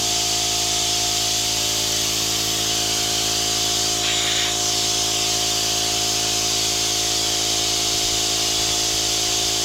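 Oil extraction suction pump running steadily with a constant hum and hiss, drawing engine oil out through a plastic tube slowly.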